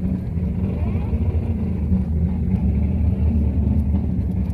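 Car engine idling with a steady low exhaust rumble, with faint voices in the background.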